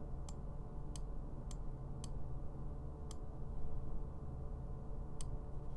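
Computer mouse clicking: about six sharp, separate clicks at uneven intervals, over a steady low electrical hum.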